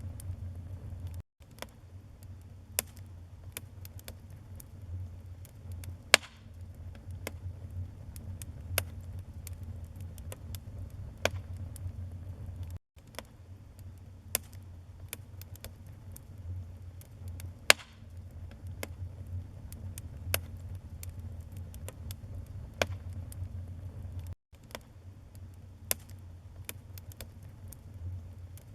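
Wood fire in a fireplace crackling, with irregular sharp snaps and an occasional louder pop over a steady low rumble of the flames. The sound cuts out for an instant three times, evenly spaced about 11 to 12 seconds apart.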